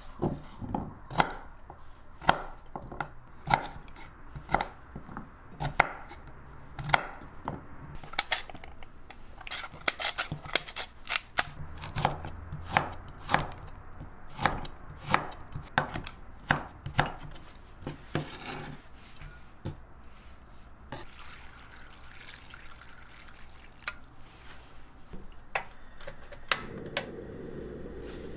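Kitchen knife chopping burdock root on a wooden cutting board: a run of sharp, irregular knocks, about one or two a second, that thins out in the last third.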